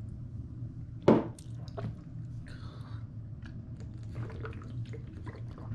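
Drinking and swallowing sounds as a shot is taken, then chased with water from a plastic bottle and a bite of lemon wedge, over a steady low hum. One short, loud sound stands out about a second in.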